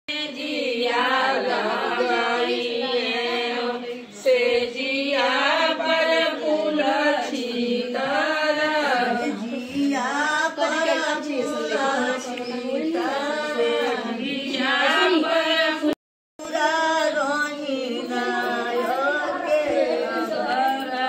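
Several women singing a traditional folk song together in a chant-like unison, without instruments. The singing cuts out abruptly for a moment about 16 seconds in, then resumes.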